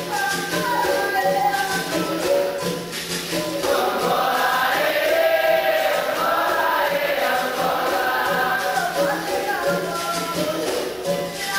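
Capoeira roda music: a group sings with pandeiro and other percussion keeping a steady beat, the singing growing fuller about four seconds in.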